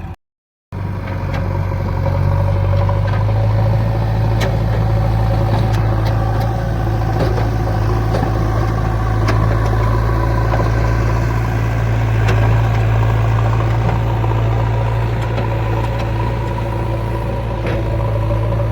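Heavy diesel machinery engine running steadily at a constant speed, with a deep, even hum. It comes in abruptly after a brief silent gap right at the start, and a few faint clicks sound over it.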